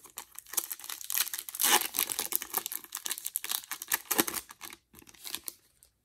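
Foil wrapper of a trading card pack being torn open and crinkled by hand: a dense crackling rustle, loudest about two seconds in, that thins out near the end.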